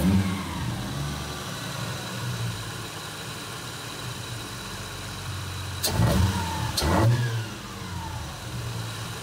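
Car engine idling steadily, revved briefly at the start and twice more, about six and seven seconds in, each rev falling back to idle.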